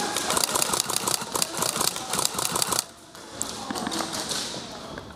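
Airsoft electric guns firing on full auto: a fast rattle of shots for about three seconds that breaks off, followed by a few scattered shots near the end.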